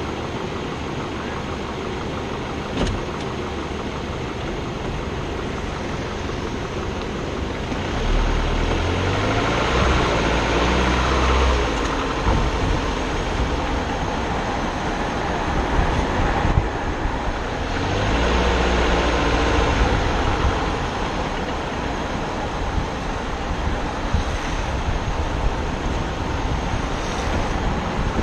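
Steady rush of wind and urethane longboard wheels rolling on asphalt during a downhill run. Heavier rumbling gusts come about eight seconds in and again around eighteen seconds.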